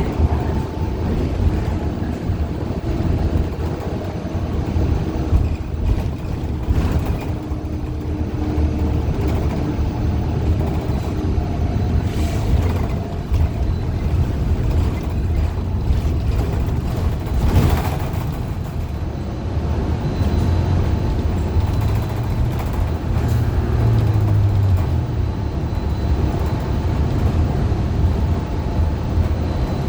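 Steady running and road noise inside a 2015 Gillig low-floor CNG bus under way: a continuous low rumble from the Cummins Westport ISL G engine and drivetrain, with some steady hum. Its Allison B400R transmission is one that the uploader calls messed up. A sharp knock or rattle comes about twelve seconds in, and a louder one at about seventeen seconds.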